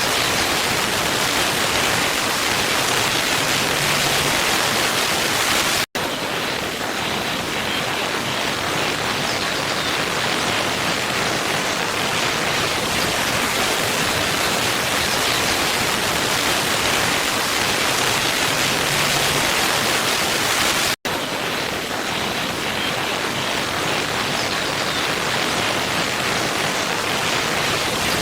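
Waterfall ambience: a steady rush of falling water. It cuts out for an instant twice, about fifteen seconds apart.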